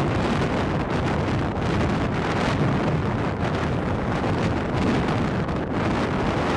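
Strong outflow wind of a dust storm (haboob) buffeting the microphone with a steady, loud rush of wind noise.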